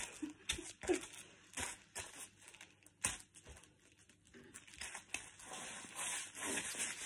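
Bare feet crunching crushed potato crisps into a tile floor: a few short, separate crunches under each step, then from about five seconds in a denser gritty rustle as the soles scuff and grind through the crumbs.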